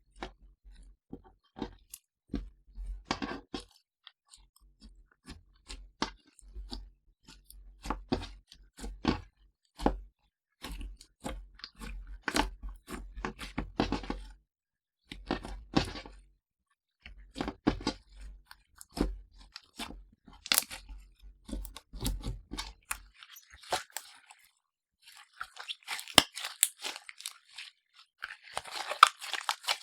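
Slime being kneaded and mixed by hand: irregular runs of sticky clicks and pops. It turns into a denser, continuous crackling for the last few seconds.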